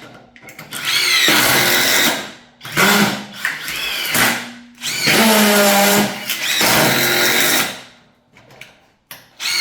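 Cordless impact drivers driving screws in about four bursts of a second or two, each starting with a rising motor whine, then two short blips near the end.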